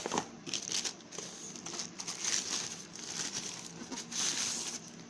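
Plastic packaging crinkling and rustling in irregular bursts as it is handled, stopping shortly before the end.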